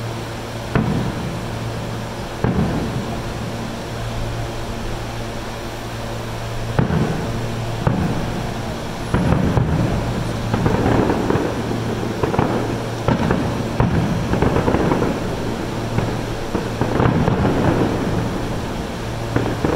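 Aerial firework shells bursting, about a dozen sudden bangs, each trailing off in an echo. The bursts come more often in the second half.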